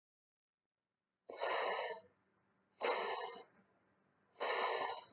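A woman three times saying the voiceless phonics sound /f/, each a breathy hiss of about two-thirds of a second, spaced about a second and a half apart.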